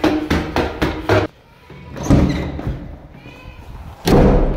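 Quick slapping footsteps of sandals on marble stairs, then a thud, a short squeak, and a wooden door banging heavily near the end.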